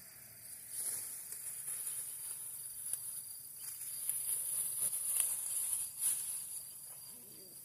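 Insects chirring steadily in a high-pitched hiss, with intermittent rustling and a few sharper crinkles from hands working through bean plants and a plastic bag, most between one and six seconds in.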